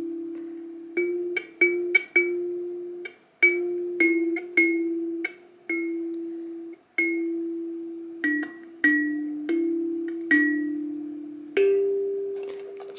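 Single notes on a small tuned instrument with a bell-like ring, played one at a time in a slow, halting simple tune with a few short pauses: a beginner picking out a melody while still finding where the notes are.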